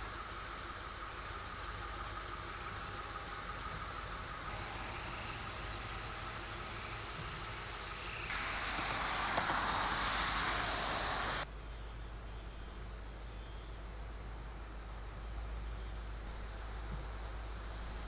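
Outdoor ambience: a steady low rumble and hiss. About eight seconds in, a louder rushing noise starts, and it cuts off abruptly about three seconds later.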